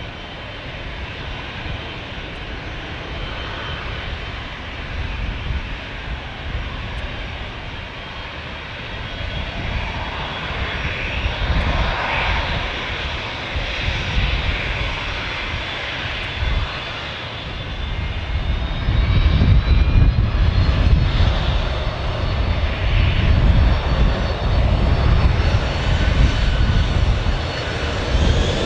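Jet airliner's engines during takeoff: a steady rush with deep rumble that grows louder about two-thirds of the way through, and a whine that rises in pitch near the end.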